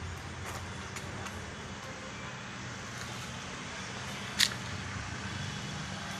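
Steady outdoor background noise, a low hum under an even hiss, with one sharp click about four and a half seconds in.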